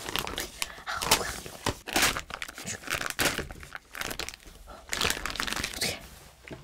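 Thin clear plastic sheet crinkling and rustling as it is handled and peeled up from sticky melted candy, in irregular bursts of rustles.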